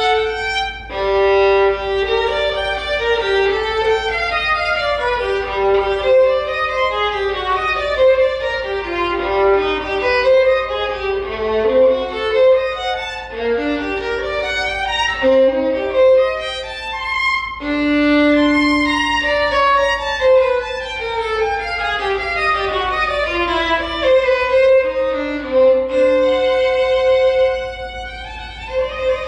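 Unaccompanied solo violin, bowed, playing a fast passage of quick running notes that climb and fall across the range.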